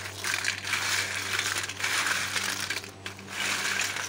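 A hand stirring a steel bowl of crisp, freshly fried rice-flour snack pieces, which rustle and clatter against each other and the bowl, with a short lull about three seconds in.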